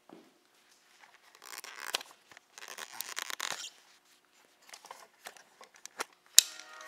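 Camera handling noise: rustling and scraping against the microphone as the camera is picked up and moved, with scattered small clicks and one sharp click near the end.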